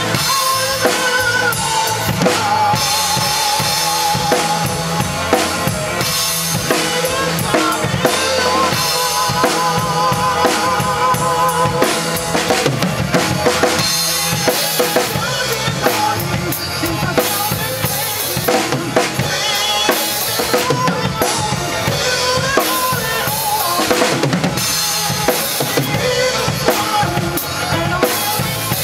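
Drum kit played live, with kick, snare and cymbal strokes, along to a recorded rock song whose melody lines run under the drums. The groove is built on 7/8 and 4/4.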